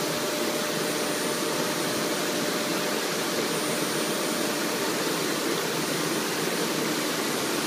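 Induction hardening rig running on a rotating shaft: a steady rushing noise of quench water spray and machinery, with a thin high whine that comes and goes.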